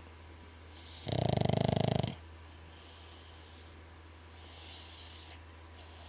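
Snoring: one loud, fluttering snore about a second in, then a softer, breathy breath a few seconds later.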